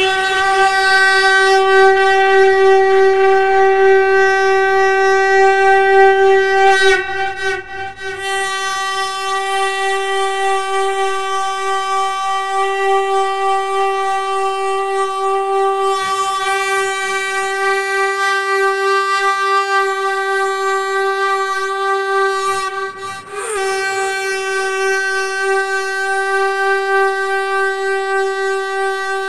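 Conch shell (shankh) blown in a long, steady, held note with a rich, buzzy tone. It breaks off briefly for a breath about seven seconds in and again about three-quarters of the way through, then carries on at the same pitch.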